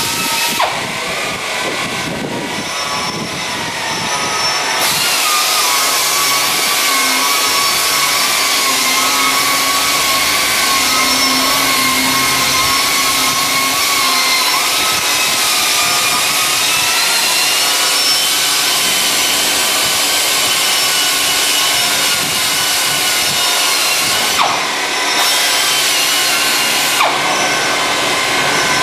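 GISON GPW 7 pneumatic polisher running, an air-motor whine with a steady hiss of air. The whine drifts slightly up and down in pitch as the load on the pad changes, and the hiss grows fuller after about five seconds.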